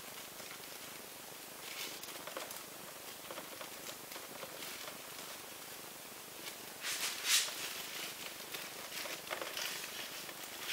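Faint rustling and crinkling of disposable plastic gloves as gloved hands handle a canvas, with louder rustles about two seconds in and around seven seconds in, over a steady faint hiss.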